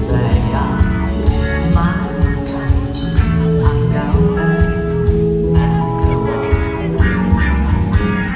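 Live pop band playing in a concert hall, with a male singer singing into a microphone over electric guitar, bass and drums with a steady beat, heard from the audience.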